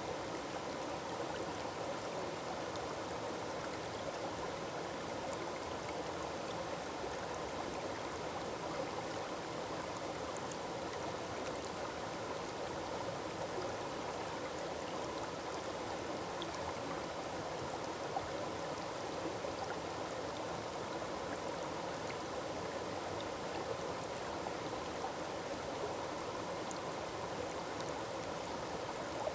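Small forest waterfall, water falling and rushing over rocks in a steady, unbroken splashing rush.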